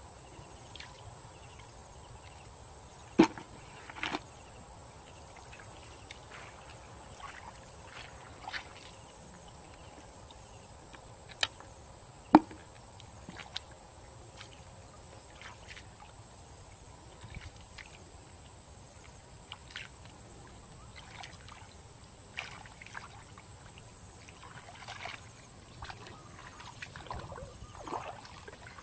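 Hands groping and splashing in shallow muddy pond water: scattered small sloshes and splashes, with a few sharp, louder impacts and busier splashing near the end.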